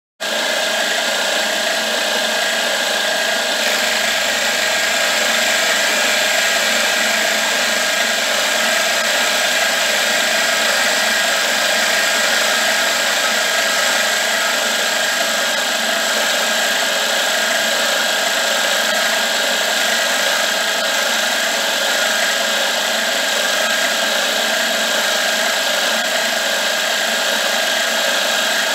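Milling machine running, its large cutter machining a metal plate: a steady, loud whirring cut with a constant high tone, starting suddenly.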